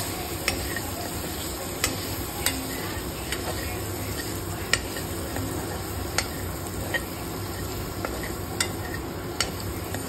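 Prawns coated in chilli powder sizzling in oil in a nonstick kadai while a steel spatula stirs them. Sharp, irregular clicks of the spatula against the pan sound over a steady hiss.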